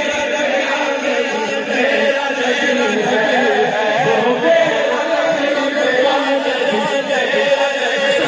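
Many men's voices chanting together in unison, led through a microphone and loudspeakers, without a break.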